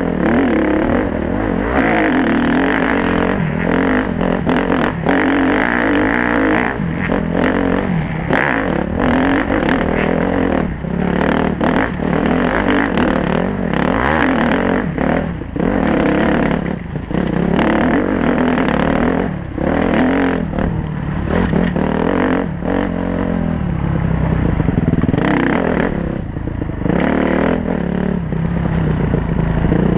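Honda CRF four-stroke dirt bike engine heard from on board, revving up and dropping back every second or two as the throttle opens and closes, with knocks and clatter from the bike over rough ground.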